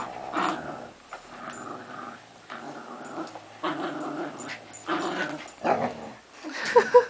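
Dogs growling in play during a tug-of-war over a rope toy between a Border terrier puppy and a husky, in rough, repeated bouts. A couple of short higher yips come near the end.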